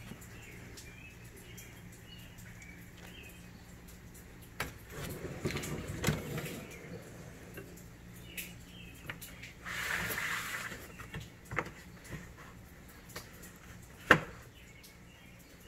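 Handling noises from a homemade pull-out laundry-basket frame on metal drawer slides: a rumble and small clicks, a rolling hiss as the frame slides out, and one sharp knock about fourteen seconds in. A steady low hum underlies the first few seconds.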